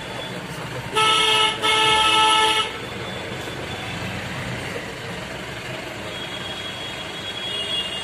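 Car horn honked twice about a second in, a short beep and then a longer one, over the steady running of the car's engine and street traffic heard from inside the cabin.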